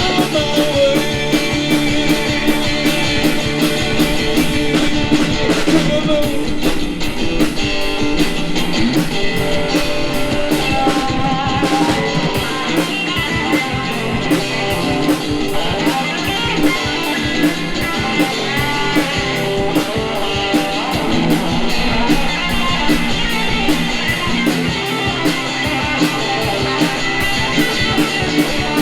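Live blues band playing an instrumental passage, with a guitar solo over the drum kit.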